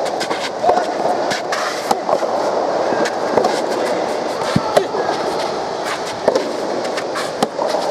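Soft tennis match play: irregular sharp knocks of racket hits on the rubber ball and short squeaks from court shoes, over a steady murmur of crowd noise.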